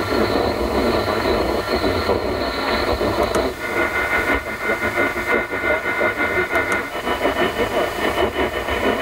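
Medium-wave AM radio static from an Audi MMI Basic car radio tuned between stations: a dense hiss and crackle with thin, steady interference whistles. The whistles change abruptly twice, about three and a half and seven seconds in, as the radio steps up the band 9 kHz at a time.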